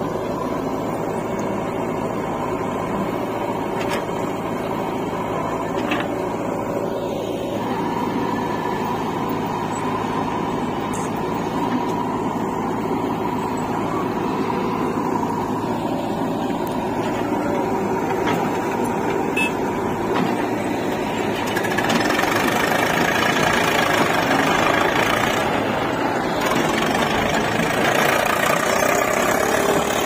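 Diesel engines of a JCB 3DX backhoe loader and an Eicher tractor running steadily while the backhoe loads earth into the tractor's trolley. The engine noise grows louder and harsher about three-quarters of the way through.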